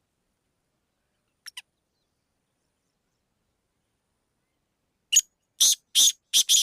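Black francolin calling: two faint short notes about a second and a half in, then a loud, harsh series of five quick notes near the end.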